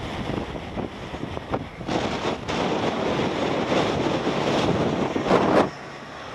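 Strong, gusty wind rushing and buffeting, with wind noise on the microphone; the loudest gust comes about five seconds in and then cuts off suddenly.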